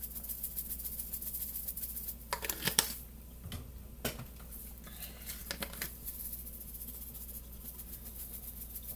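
Spice shaker bottle shaken over a pot of noodles: spells of quick, crisp rattling as seasoning is sprinkled in, with a few sharper clicks about two to three seconds in.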